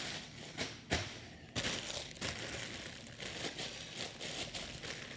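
Plastic packaging crinkling and rustling as a courier poly mailer and clear plastic bags are handled and shifted, with a sharp knock just before a second in.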